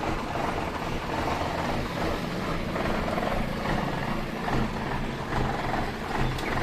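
Mitsubishi Fuso truck's diesel engine idling steadily, being warmed up after standing unused for two weeks.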